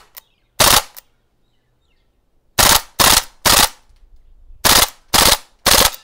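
VFC MP5A5 airsoft gun firing in three-round burst mode: short bursts of rapid shots, one about half a second in, then three bursts in quick succession near the middle and three more near the end.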